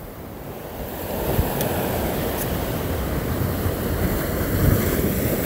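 Sea surf surging and washing over rocks, growing louder about a second in, with wind rumbling on the microphone.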